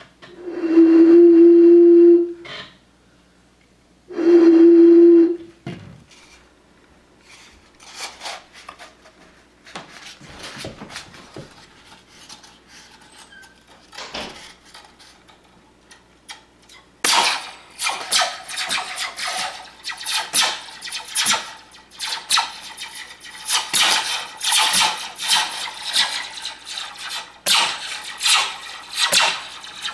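Two steady hooting tones blown across the mouth of a small plastic bottle partly filled with water, the first about two seconds long and the second about one. Then scattered clicks, and from a little past the middle, dense rapid rattling of a metal Slinky's coils being handled and stretched.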